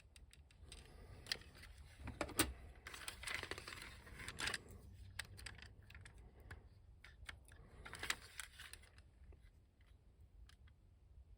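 Faint, irregular clicks and light taps of small hard-plastic toy parts being handled and moved against each other, with a few brief rustles, as a glued gun-mount piece is shifted while the glue sets.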